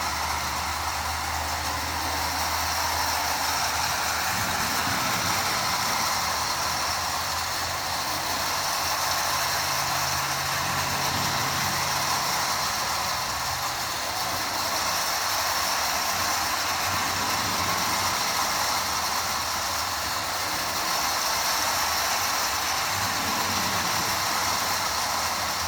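Marx Commodore Vanderbilt tin toy train running steadily around its track, a continuous even whir and rattle of the locomotive and tin cars on the rails.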